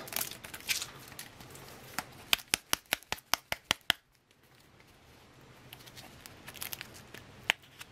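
A paper soft pack of cigarettes being opened. The cellophane wrapper crinkles as its tear strip comes off, then the pack is slapped against a palm in a quick run of about nine taps, about five a second. After that the wrapping at the top of the pack rustles as it is opened.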